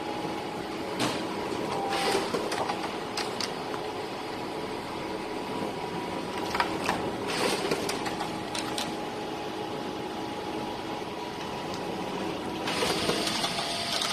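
Canon imagePRESS C850 colour production copier running with a steady mechanical hum. Glossy printed sheets rustle and crackle several times as they are lifted and leafed through, most of all near the end.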